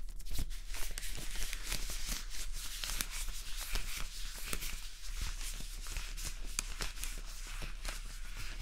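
Thin white plastic drawstring bag being unfolded and handled: a continuous crinkling rustle made of many small crackles.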